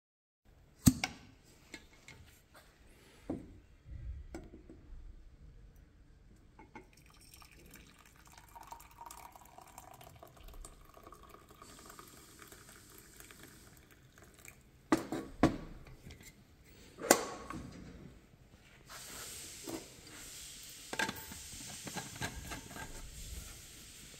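Vacuum flask opened with a sharp click, then tea pouring from it into a ceramic mug. Loud clicks and knocks follow as the flask's cap is handled and the flask is set down, with a steady hiss near the end.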